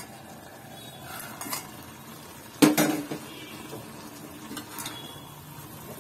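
Stainless steel lid lifted off a kadai and set down with one loud ringing clank about two and a half seconds in, followed by a few light taps and scrapes of a perforated steel ladle stirring pumpkin pieces in the pan.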